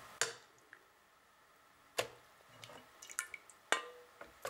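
Wet boiled chiles dripping and landing in a plastic blender jar, with sharp taps and clicks of a utensil against the jar and bowl. About five taps, the loudest near the start, about two seconds in and just before four seconds.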